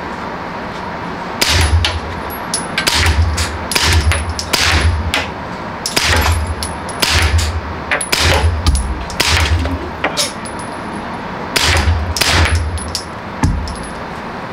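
Suppressed Century Arms Draco 9s 9 mm pistol firing about a dozen shots at an unhurried, uneven pace, starting about a second and a half in. A faint high ring follows many of the shots.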